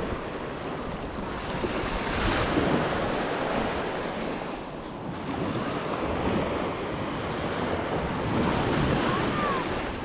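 Small waves washing onto a sandy beach, with wind buffeting the microphone. The wash swells about two seconds in and again near the end.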